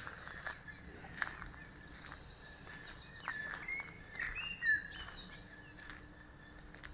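Small wild birds chirping, with short calls and slurred whistled notes, over a faint steady outdoor hiss, with a few light clicks.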